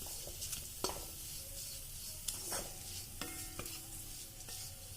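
Spiced masala of ginger, garlic, green chilli, curry leaves and chilli powder sizzling in hot oil in a pan while a spatula stirs it, with a few light clicks and scrapes of the spatula against the pan.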